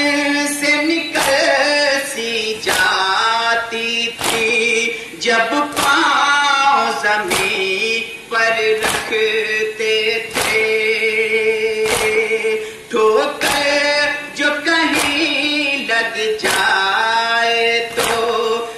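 A male nauhakhwan sings a Muharram nauha (lament) through a microphone, with the mourners chanting along. Rhythmic matam runs under the singing: hands slapping chests in unison about every three quarters of a second.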